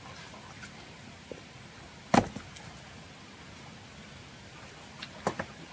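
A single sharp knock about two seconds in and a couple of fainter knocks near the end, over a steady low hiss.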